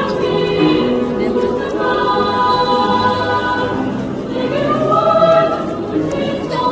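Girls' choir singing in Korean, holding long sustained notes.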